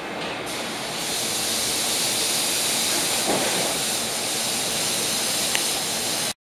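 Nishitetsu 3000 series electric train standing at a platform, giving off a steady hiss that grows louder about a second in, with a single click near the end. The sound cuts off suddenly just before the end.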